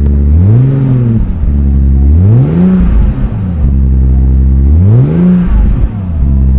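Exhaust of a 1987 Toyota Mark II GX71 GT Twin Turbo's 1G-GTE twin-turbo straight-six through an ANSA muffler, idling and blipped three times, each rev climbing and falling back to idle within about a second. A calm but racy, sporty note.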